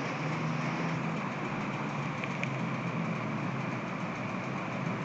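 1 horsepower Daikin split-unit air conditioner running with a steady hum and fan noise.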